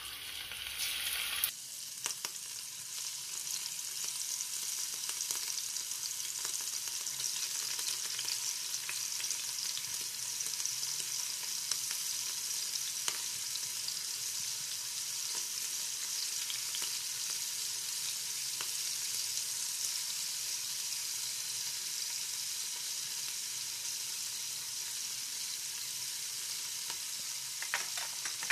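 Prawns frying in hot coconut oil in a pan: a steady sizzle with scattered small pops.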